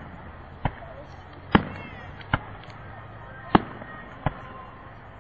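Aerial fireworks bursting: five sharp bangs at uneven intervals.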